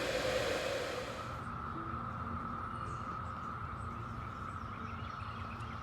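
Steady, even hum of a distant periodical cicada chorus, one held pitch. A broad hiss covers the first second or so and then stops.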